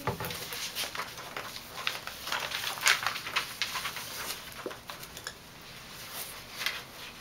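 Paper rustling and crackling in irregular bursts as sheets of a handout are handled and turned, busiest in the first few seconds and thinning out after, with a soft knock right at the start.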